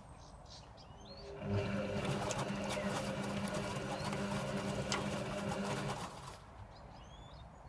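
Servis Sapphire 6055 washing machine's motor turning the drum in the wash phase: a steady hum with a rustling wash noise. It starts about a second and a half in and stops about six seconds in.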